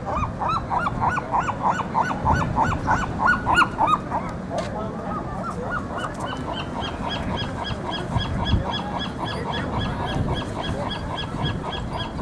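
Seagulls squawking: a fast run of repeated call notes, about four a second, for the first four seconds, then a thinner, higher call repeating about three times a second to the end.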